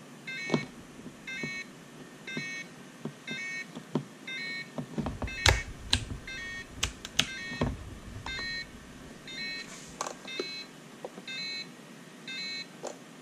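Turnigy TGY-i6 radio transmitter sounding its start-up warning alarm, short double beeps about once a second. It is squawking because not all switches are in the up position and the throttle is not lowered. Sharp plastic clicks and knocks from handling the transmitter's switches and sticks are busiest about five to eight seconds in.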